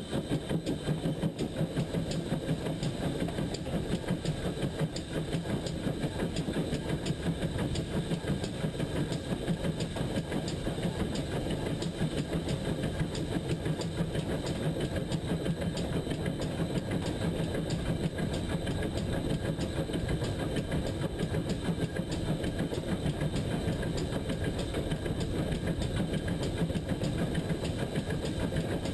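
Pannier tank steam locomotive running steadily along the line, picked up from a camera mounted on the front of the engine: a continuous rumbling running noise with a fast, even pulsing.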